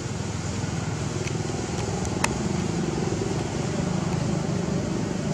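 A motor vehicle's engine running steadily, a low rumble, with a few faint clicks and one sharper click about two seconds in.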